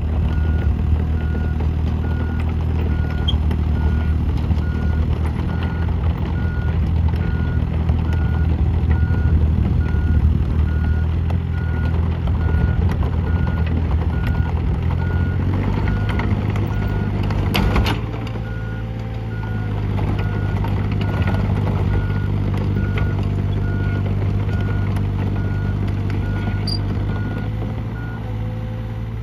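Komatsu PC30 mini excavator's diesel engine running, with its travel alarm beeping steadily about once a second as the machine moves. About halfway through the engine note changes and a single sharp clank sounds; the beeping stops near the end.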